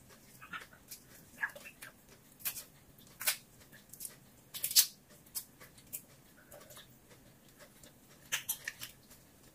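Cooked shrimp being peeled by hand and eaten: irregular sharp crackles of the shells and wet mouth clicks, the loudest about five seconds in.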